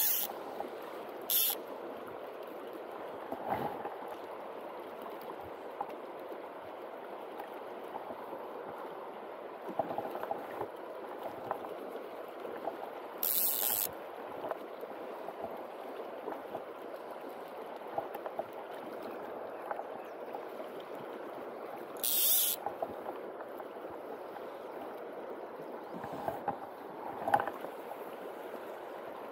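Steady rush of a river's flowing current, broken four times by short, high buzzes of a click-pawl fly reel as line is pulled off: near the start, about a second later, around the middle and once more later on.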